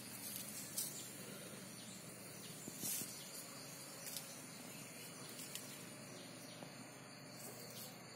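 Faint outdoor ambience: a steady low hiss broken by a few short, scattered clicks and rustles.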